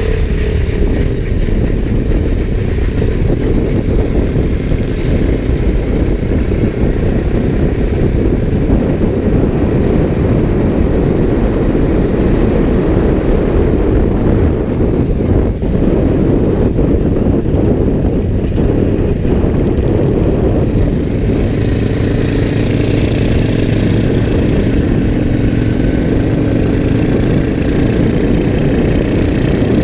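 Motorcycle engine running steadily, a dense low rumble with no break.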